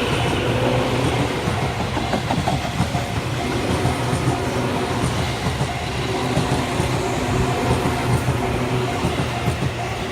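Tobu Tojo Line electric train passing over the level crossing, a steady rumble with the clickety-clack of wheels over the rail joints.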